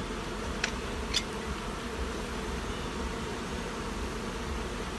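Many honeybees in flight buzzing steadily, with two sharp clicks close together about a second in.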